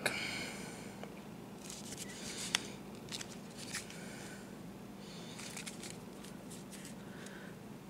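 Plastic camcorder battery packs handled in the hands: soft, faint scraping and rubbing of hard plastic, with a couple of light clicks partway through.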